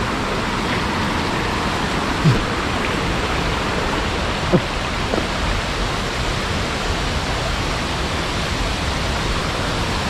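Steady rush of water flowing over the rocks of a forest stream, with a couple of brief knocks about two and four and a half seconds in.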